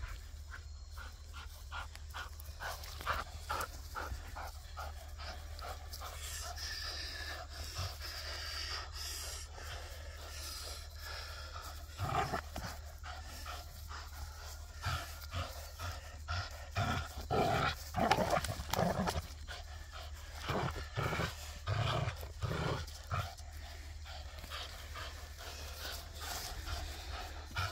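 Vizsla panting hard while tugging on a toy, with a run of louder short sounds through the middle.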